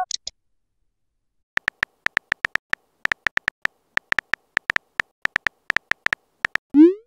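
Phone keyboard clicks from a texting app: short, identical ticks in irregular runs of several a second as a message is typed letter by letter. Near the end comes a quick rising whoosh, the app's message-sent sound.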